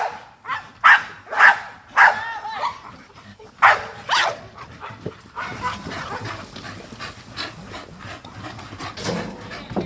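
American bully dogs barking: a string of short, loud barks in the first half, a quieter stretch of mixed noise, then another bark near the end.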